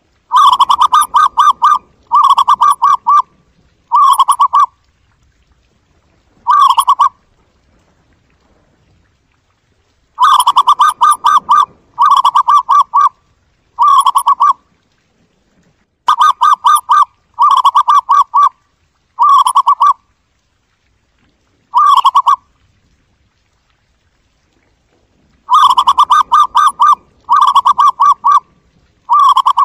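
Zebra dove calling: bursts of rapid pulsed notes, each up to about a second and a half long, in runs of three or four that get shorter toward the end of each run, with pauses of a few seconds between runs.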